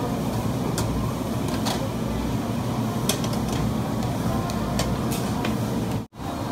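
Busy restaurant ambience: a steady low rumble of ventilation and background chatter, with scattered light clicks and clinks of tableware. The sound cuts out abruptly near the end.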